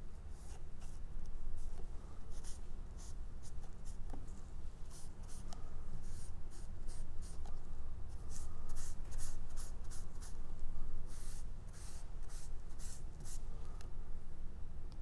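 A brush spreading watered-down school glue over paper collage pieces, in quick scratchy strokes about two to three a second, in runs with short pauses.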